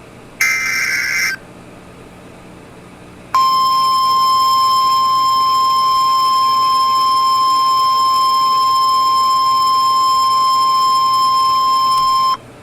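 NOAA Weather Radio alert start: the last burst of the SAME digital header, a harsh data screech about a second long, then about nine seconds of the 1050 Hz warning alarm tone, a single steady tone that cuts off sharply. Together they signal that a warning broadcast is about to begin.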